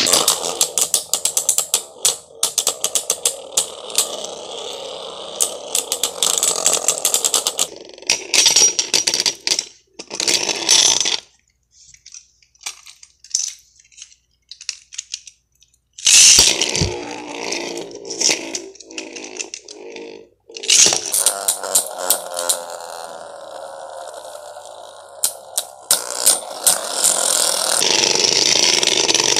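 Beyblade Burst spinning tops whirring around a stadium bowl and clashing, with rapid sharp clicks as they strike each other over a steady spinning rasp. It goes almost quiet for a few seconds near the middle, then the spinning and clashing start again and run on.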